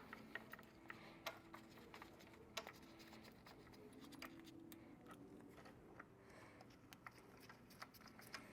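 Near silence broken by faint, scattered small clicks and ticks of bolts being threaded by hand into a plastic pump manifold.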